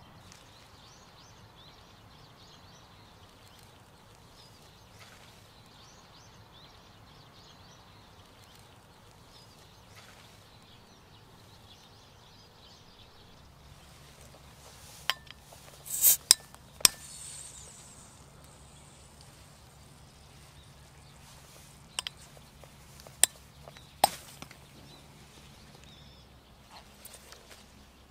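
A glass beer bottle being handled, with sharp glassy clicks and knocks. A loud crack about halfway through is followed by a short hiss, like a cap coming off. Three more sharp clinks come a few seconds later, over a faint outdoor background.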